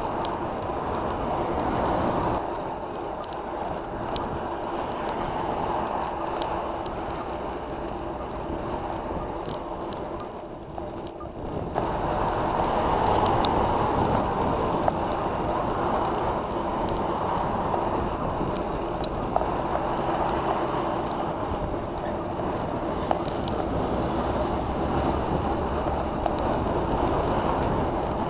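Wind rushing over the microphone, mixed with road noise while riding along a street. Motor traffic passes close by, and it gets louder a little before halfway as a van overtakes.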